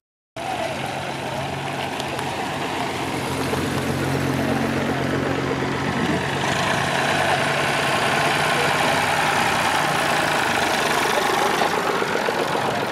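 Classic car engines running at low revs as the cars drive slowly past one after another. A steady engine hum fades about six seconds in, and a more even engine rumble follows.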